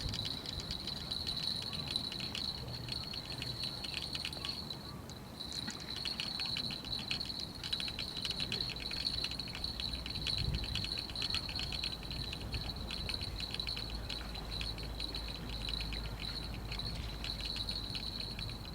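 A continuous high-pitched trill of rapid pulses, insect-like, that breaks off briefly about five seconds in and then carries on, over a faint background.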